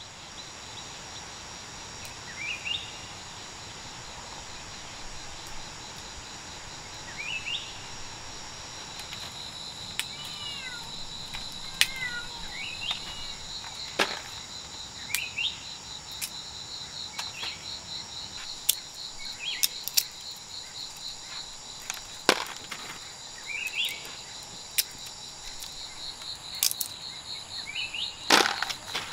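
Rural forest ambience: insects chirring in a steady, fast-pulsing trill that grows stronger about nine seconds in, with a bird giving short rising calls every few seconds. A few sharp clicks cut through, the loudest near the end.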